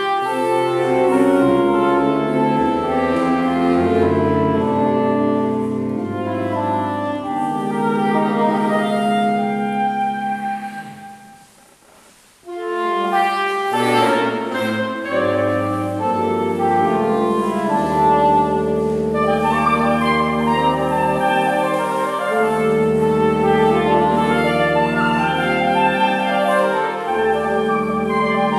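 Saxophone quartet of soprano, alto, tenor and baritone saxophones playing sustained notes in four-part harmony. About eleven seconds in, the chord dies away and rings briefly in the church. The quartet comes back in together a second or so later.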